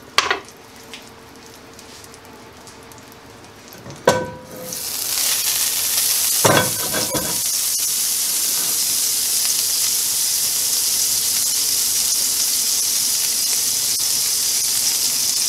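Butter melting in a hot cast iron skillet of oil and steak drippings. It is fairly quiet at first; after a sharp click about four seconds in, the butter starts sizzling, builds quickly and holds a steady, loud sizzle, with a knock a couple of seconds later.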